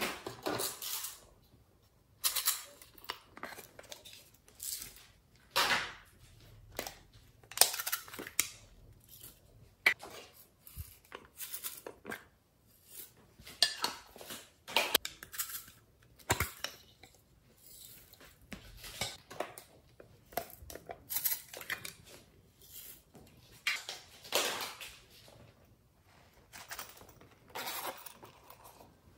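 Glitter and sequins shaken out of small plastic containers onto slime in a glass dish, heard as a string of short, crisp, hissy bursts about every second or two, with light clinks against the glass.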